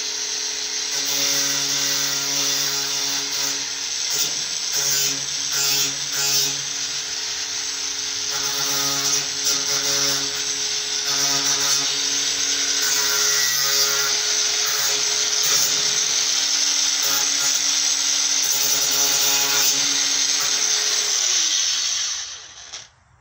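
Cordless angle grinder running under load, grinding metal angle iron: a steady whine over a loud high grinding hiss that rises and eases as the disc bites. Near the end the motor winds down in pitch and stops.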